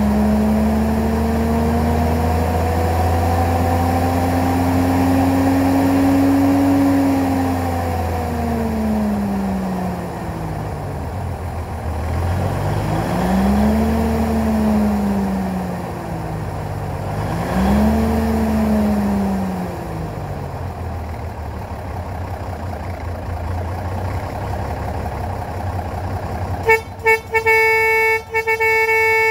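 Cummins 250 non-turbo diesel in a 1970 XM818 army truck running and being revved: one long slow rev, then two shorter ones, before dropping back to a low idle. Near the end the truck's horn gives a few short toots and then a long blast.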